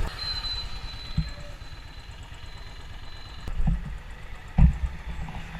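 Royal Enfield Classic 500's single-cylinder engine running low and steady, with a thin high whine over the first three seconds or so and a few dull thumps, the loudest near the end.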